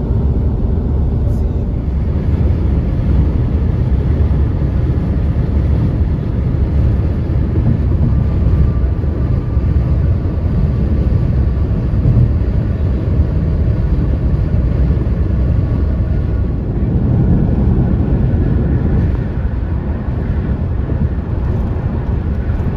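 Steady low rumble of a moving vehicle, with no clear break or change.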